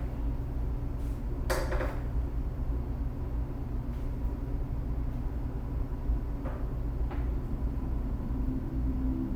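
A steady low background rumble with a few light knocks and taps, the loudest about one and a half seconds in. Right at the end, the Echo Dot's start-up chime begins as a few soft, steady tones.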